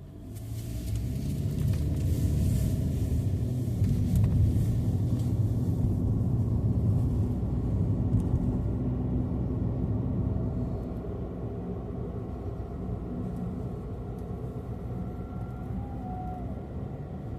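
Car engine and road noise while driving, a steady low rumble that swells over the first couple of seconds and eases off a little about ten seconds in.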